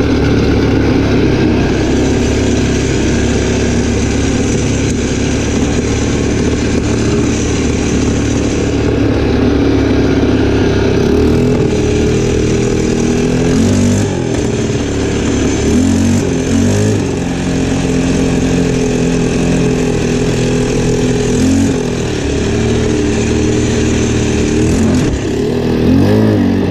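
ATV engine running steadily under way, then its note rising and falling several times in the second half as the throttle is worked.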